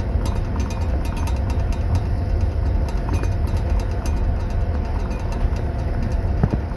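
Steady rumble and rattle of a moving passenger train heard inside a sleeping compartment, with teaspoons jingling in tea glasses in their metal holders and a brief clink about six and a half seconds in.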